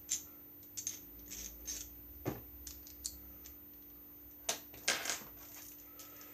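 Small plastic clicks and rattles as Beyblade keychain tops are handled and fitted into their launchers, with a few sharper knocks about two seconds in and again around four and a half to five seconds.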